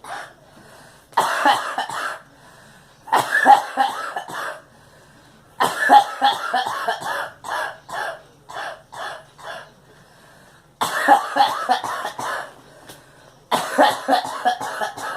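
A girl coughing in repeated fits: about five bouts of rapid coughs a few seconds apart, with single coughs trailing after the third.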